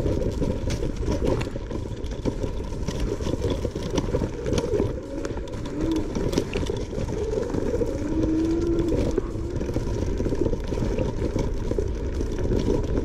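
Langfeite L8S electric scooter ridden at full throttle over rough off-road ground: a loud, steady rumble of wind and riding noise, broken by frequent short knocks and rattles from the bumps, with a faint steady high tone.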